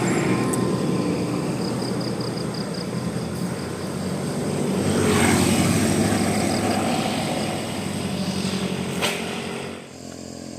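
Large tour bus passing at the roadside: steady diesel engine and road noise that swells to its loudest about five seconds in, then fades. There is a short click near the end.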